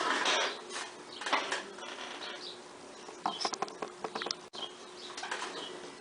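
Light scraping and rustling from hands and small tools working on a phone, with a quick run of small clicks about three and a half seconds in, over a faint steady hum.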